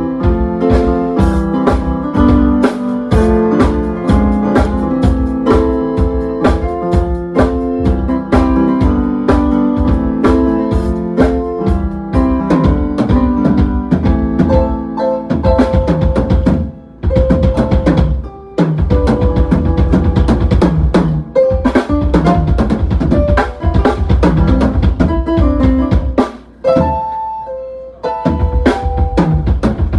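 Music with a full drum kit, bass drum and snare keeping a steady beat under pitched instrument notes, with brief breaks about halfway and near the end.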